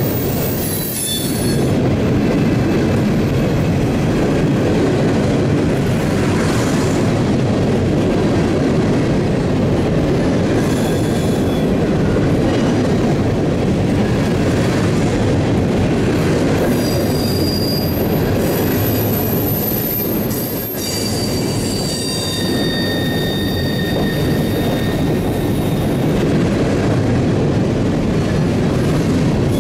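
Loaded ballast hopper cars of a freight train rolling past close by: a steady rumble of steel wheels on the rail, with thin high-pitched wheel squeals coming and going in the second half as the wheels grind against the curving rail.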